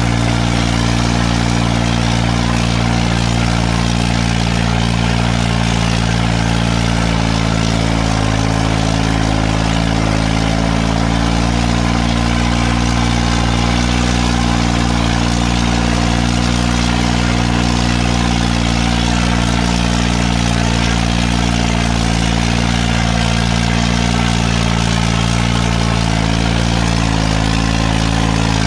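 New Holland 3630 tractor's three-cylinder diesel engine running steadily under load as it pulls a disc harrow through the soil, its note holding the same pitch throughout.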